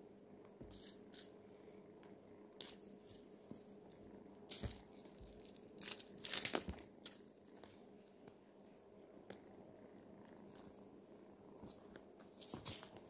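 Faint rustling and scratching of a kitten pouncing on and biting a feather wand toy on a fabric cushion: scattered short rustles and clicks, busiest around the middle, over a faint steady hum.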